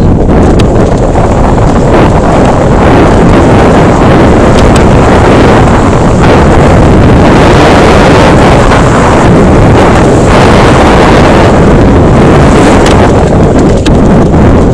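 Loud wind buffeting a helmet- or body-mounted action camera's microphone as a downhill mountain bike rides fast down a dirt trail, mixed with tyre and frame rumble and a few sharp clicks and knocks from the bike.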